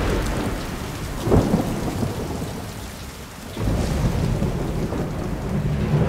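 Thunderstorm: steady rain with deep thunder rumbling, a sharp thunderclap about a second in, and another rumble building after a lull past the middle.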